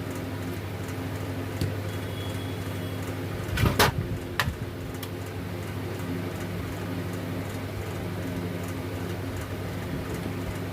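A steady low hum, with a short clatter of knocks about four seconds in and a single click just after.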